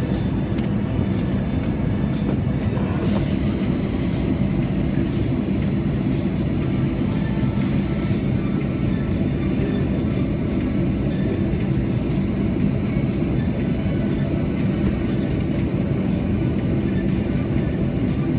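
Steady low rumble of an airliner on the ground, engines running, heard inside the passenger cabin.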